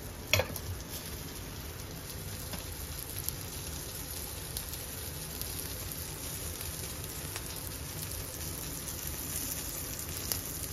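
Beef burger patty with a slice of cheddar sizzling steadily in a cast-iron skillet. A sharp knock comes about half a second in, and a smaller click near the end.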